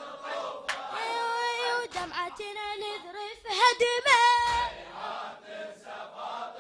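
A boy's voice chanting a Shia latmiyya lament unaccompanied, in long held, wavering melodic phrases.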